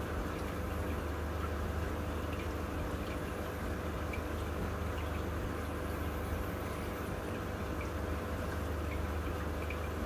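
Aquarium water circulation: a steady low pump hum under running, trickling water, with faint scattered drips.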